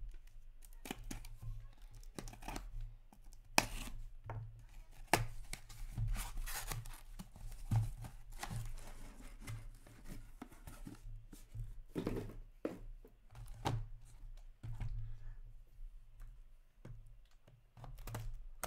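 A taped cardboard case being slit open with a blade and the cardboard torn and handled, making irregular sharp clicks and short scraping, tearing noises.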